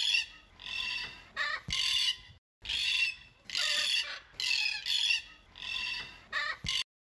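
Cockatoo screeching: a rapid run of harsh squawks, about two a second, that stops suddenly near the end.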